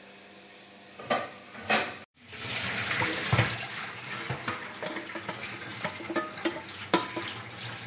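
Two short knocks about a second in, then water pours and splashes steadily into a stainless steel sink as a pot of parboiled beef tripe is tipped and drained, with small metal clinks along the way.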